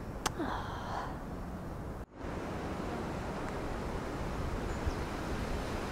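Steady outdoor ambience of wind moving through bare birch trees, a soft, even rush. A sharp click comes near the start, and the sound breaks off for a moment about two seconds in.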